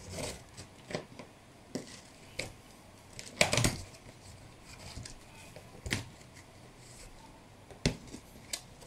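Scissors cutting open the top of a cardboard box: scattered snips, clicks and knocks against the cardboard, the loudest about three and a half seconds in, with sharp ones near six and eight seconds.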